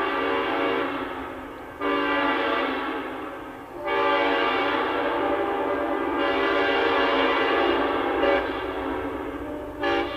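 Multi-chime locomotive air horn on a passing train, sounding a series of blasts. A new blast comes about two seconds in, then a long one from about four seconds to about eight seconds, and a short blast near the end, over the low rumble of the train.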